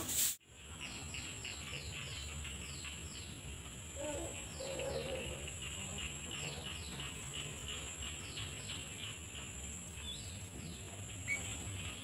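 Small birds chirping in short, quickly falling notes that come in little runs, over a steady high-pitched insect drone.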